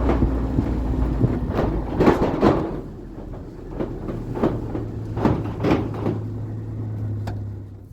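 Vehicle engine running with a steady low hum under repeated knocks and clanks. The engine cuts off near the end.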